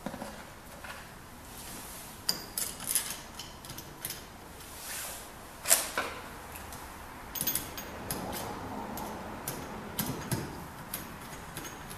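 Scattered small clicks and light knocks of door-latch hardware being handled and fitted into a door, with one sharper click just before the six-second mark.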